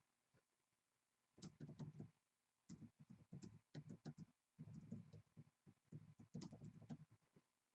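Faint, irregular runs of clicks and light taps, typical of typing on a computer keyboard and clicking a mouse.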